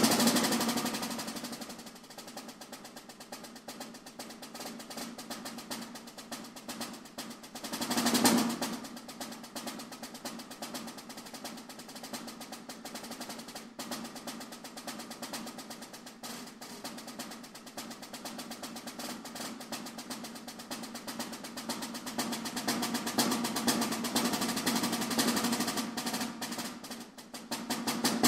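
Snare drum played with wooden sticks in a rudimental solo: dense rolls and rapid strokes. It opens loud and fades, swells to a loud peak about eight seconds in, then continues in softer fast passages that build again toward the end. A brief dip leads into a loud accent near the close.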